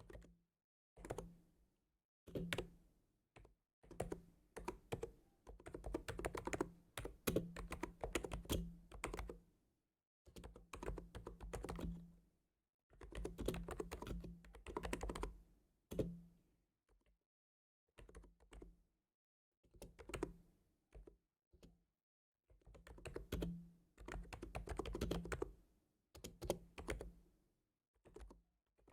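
Typing on a computer keyboard: runs of quick key clicks, each a second to a few seconds long, broken by short pauses.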